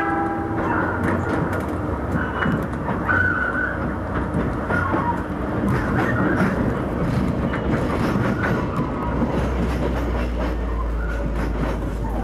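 Oigawa Railway Ikawa Line train running, its wheels clattering and knocking on the track, with a few short high squeals from the wheels. A low hum grows louder about nine seconds in.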